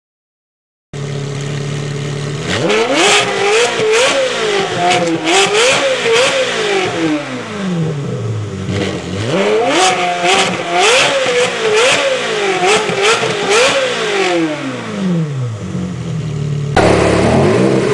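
Ferrari 360 Modena's 3.6-litre V8 through a Capristo aftermarket exhaust, revved in place: it idles, then is blipped up and down repeatedly in two runs of several seconds each, settling back to idle between them and after. Near the end it cuts abruptly to a different car's engine.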